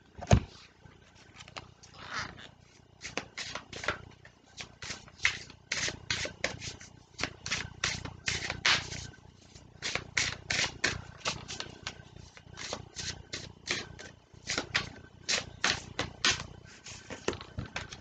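A deck of oracle cards shuffled by hand: a steady run of quick, papery snaps and flicks, several each second, with one sharper snap just after the start.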